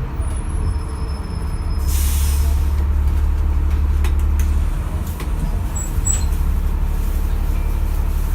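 Inside a London double-decker bus: the engine and drivetrain drone low and steady, with a short hiss of released air about two seconds in and a few faint high squeals.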